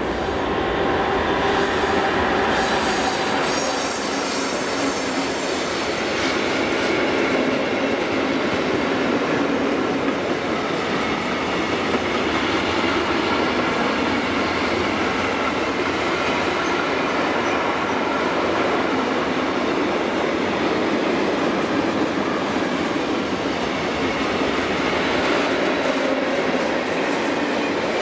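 Freight train headed by a DB class 185 electric locomotive rolling past, a steady noise of wagon wheels on the rails. Faint wavering wheel squeal from the curve runs through it.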